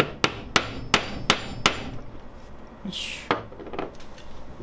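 Hammer lightly tapping a small brass part of an Optimus Svea 123R stove to knock it apart: six sharp taps about three a second, then a brief rustle and one more knock about three seconds in.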